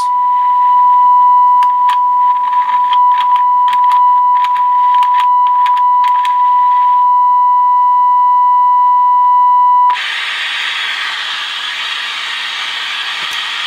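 Sony Air 7 airband receiver's speaker playing a steady test tone from the injected signal-generator signal, broken by crackles from the faulty control pots. About ten seconds in, the tone cuts off suddenly and gives way to loud static hiss.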